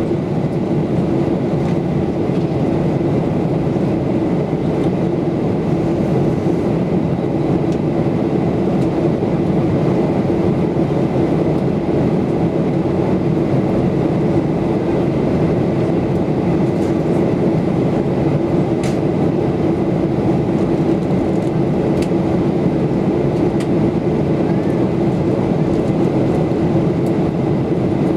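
Cabin noise of a Boeing 737-8200 (737 MAX) in flight, heard from a window seat: a steady roar of airflow and its CFM LEAP-1B engines, with a constant hum. A few faint ticks sound over it.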